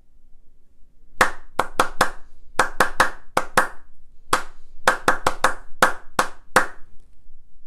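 A person's hands clapping a rhythm pattern of about eighteen claps with uneven spacing, starting about a second in and stopping near the end: a rhythm-repetition exercise for a music aptitude test, for the listener to clap back.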